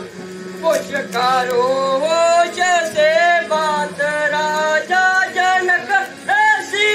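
A man singing long, wavering sung phrases over a steady held accompaniment tone, the voice coming in just under a second in.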